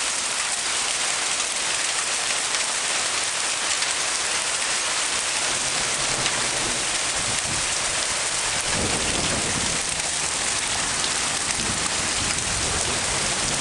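Torrential rain mixed with hail pelting the ground and porch roof: a dense, steady hiss flecked with fine ticking of hailstones. A low rumble swells briefly about nine seconds in.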